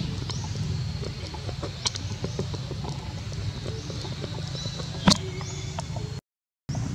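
Outdoor ambience: a steady low rumble with scattered small clicks and one sharp snap about five seconds in; the sound drops out for half a second near the end.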